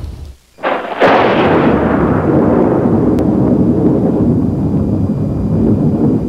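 Cinematic logo-intro sound effect: a short rising whoosh, then a deep boom about a second in. The boom carries on as a long, loud rumbling tail.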